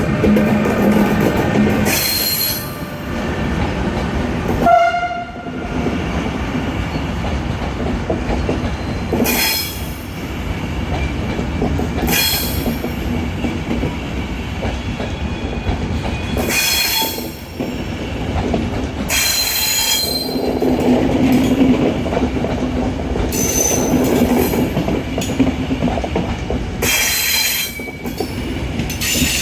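Train running along the station tracks: a steady rumble of wheels on rails, broken every few seconds by high screeching bursts of wheel squeal, with a brief pitched tone about five seconds in.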